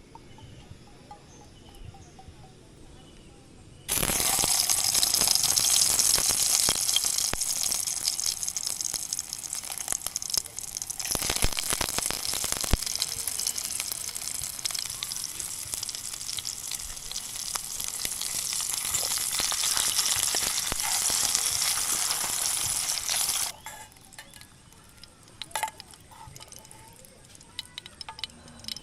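Food frying in a hot pan, a loud steady sizzle that starts suddenly about four seconds in and stops abruptly near the end, with a few light clicks afterwards.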